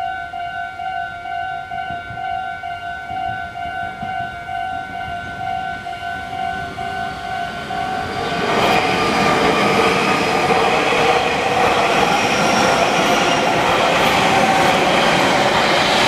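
Japanese level-crossing alarm bell ringing in a steady, fast repeating ding. About eight seconds in, Meitetsu electric trains run through the crossing and their louder running noise takes over.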